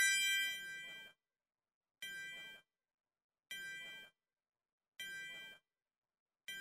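A chime of several bright, steady tones rings and fades over the first second, marking the end of a section in the recorded lesson. Then a quieter, short chime repeats every second and a half, with silence between the chimes.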